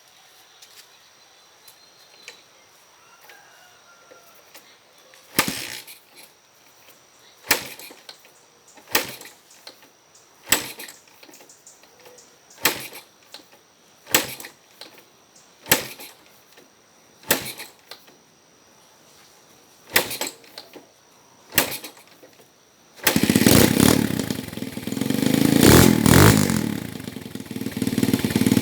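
Honda XL125 single-cylinder four-stroke motorcycle being kicked over about ten times, each kick a short, sharp stroke that dies away without the engine catching: a hard-starting engine. About 23 seconds in it fires and keeps running, revving up briefly a few seconds later.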